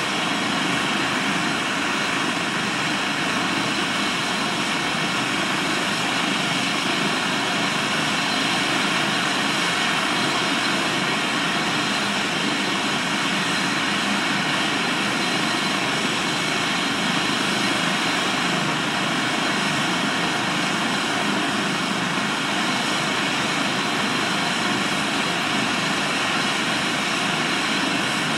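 Medical helicopter running on the pad before lift-off: a steady turbine whine over the rotor and engine noise, unchanging throughout.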